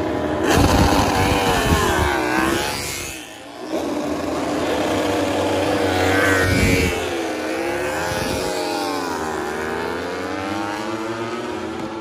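MotoGP race bikes doing practice starts one after another: each engine revs hard and pulls away, its note climbing and dropping through the gears as it passes. There is a brief lull about three seconds in before the next bikes launch.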